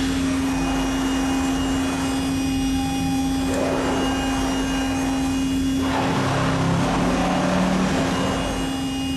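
Thermwood CNC router spindle running with a steady hum while its bit cuts a pocket along a square wooden post on the rotary device. The cutting noise rises and falls as the bit moves through the wood.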